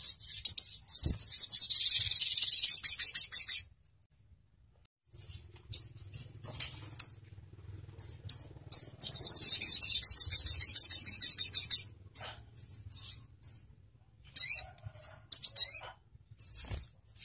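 Olive-backed sunbird (sogon ontong) singing: sharp, high chirps and two long, very fast rattling trills, the first starting about a second in and the second about nine seconds in. The trills are the sharp 'shooting' (nembak) phrases that keepers play to train their birds. The song breaks off for about a second and a half after the first trill, and a few quick sweeping notes come near the end.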